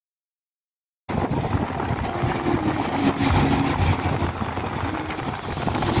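After about a second of silence, a speedboat's engine running at speed, with water rushing and splashing past the hull.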